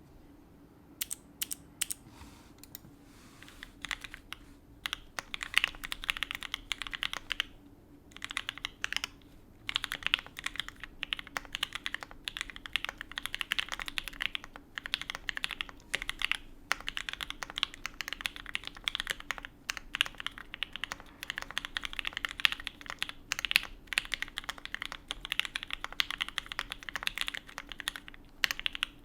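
Typing on an Alice-layout mechanical keyboard with lubed and filmed H1 switches, a carbon fibre plate and GMK keycaps. A few scattered keystrokes at first, then steady fast typing from about five seconds in, broken by a couple of brief pauses.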